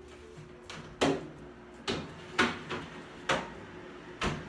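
A metal baking tray knocking and clattering as it is slid into a countertop microwave-convection oven, then the oven door clunking shut: about six short knocks over three seconds.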